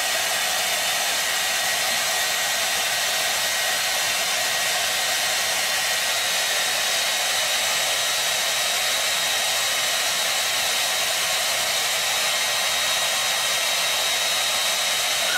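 A steady, loud rushing noise with a faint high whine in it.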